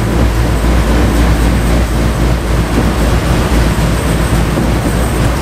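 Cabin sound of a route bus driving: a steady low engine drone with road noise from tyres on a wet, slushy road.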